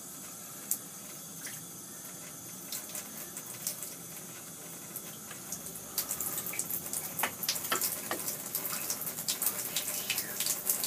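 Water spraying from a handheld shower head into a bathtub: a steady hiss that turns louder and splashier about six seconds in.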